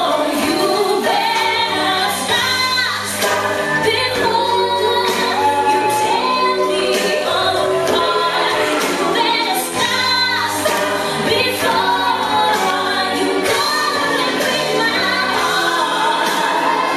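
Recorded song with singing voices over a steady beat, played back as the music for a dance routine.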